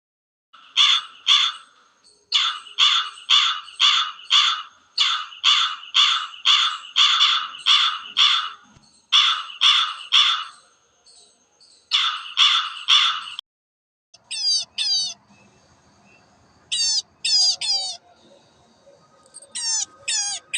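Crow cawing, harsh calls repeated about three a second in long runs. After a break, a different recording follows: short, sharp high calls in twos and threes.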